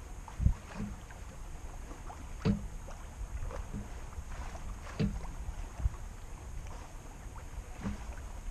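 Small waves slapping against a sailboat's hull at irregular intervals, every second or two, over a low steady rumble of water moving past the boat.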